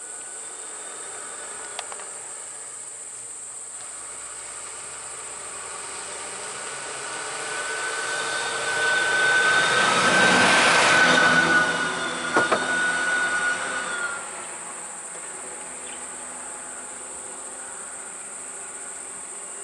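Ashok Leyland diesel bus driving past, its engine and tyre noise swelling to a peak about ten seconds in with a steady whine on top, a couple of knocks, then dropping away at about fourteen seconds. Insects drone steadily and high-pitched throughout.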